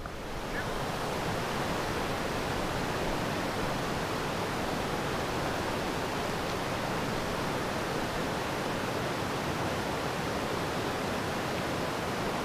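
Steady, even rush of a creek's whitewater rapids pouring over rock.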